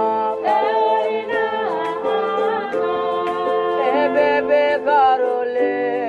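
Music: a singing voice gliding between notes over held chords.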